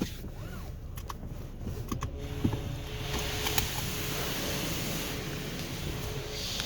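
Laser Wash 4000 touchless automatic car wash heard from inside the car: a steady low machine rumble with a faint steady whine, a few sharp ticks early, then a hiss of high-pressure water spraying against the car from about two seconds in.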